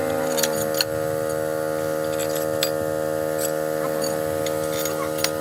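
Steady machine hum made of many even, unchanging pitches, with a few sharp clicks scattered through it.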